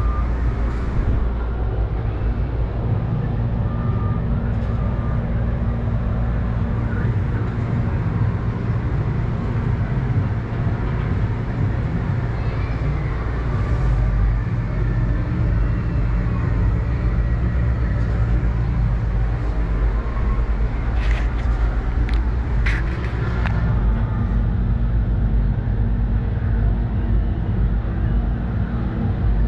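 Steady low rumble and hum heard from inside an enclosed Ferris wheel gondola during the ride, with a few short clicks about two-thirds of the way through.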